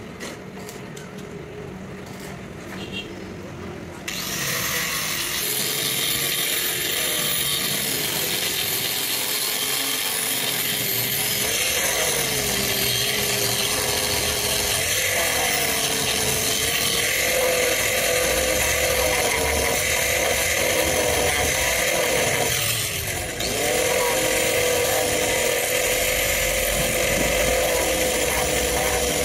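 Angle grinder grinding the steel top of a truck fifth wheel plate, throwing sparks. It starts about four seconds in, and its motor whine wavers as the disc is pressed into the metal and eases off. It lets up briefly a little past twenty seconds in, then bites again.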